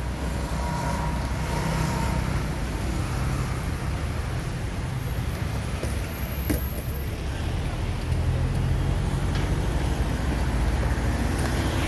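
Busy street traffic: motor vehicles running past with a steady low rumble that swells twice, with one sharp knock about halfway through.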